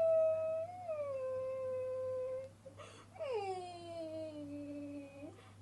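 Baby crying in two long, drawn-out wails, each sliding down in pitch; the second starts about three seconds in and drops lower than the first.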